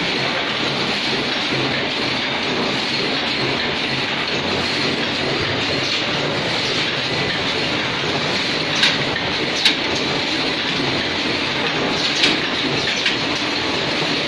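Paper plate forming machines running on a production line: a steady, dense mechanical clatter, with four sharper clacks in the second half.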